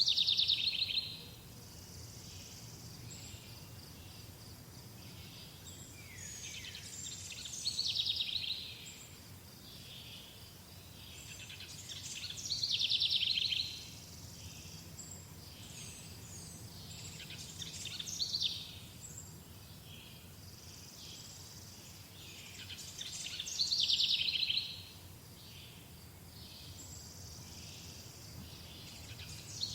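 Songbirds singing: one bird repeats a loud song phrase of about a second roughly every five seconds, with softer chirps from other birds in between.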